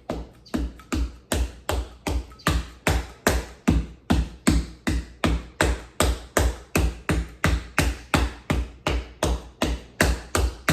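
Hand-carved printing stamp tapped down again and again, about three even knocks a second, each with a dull thump.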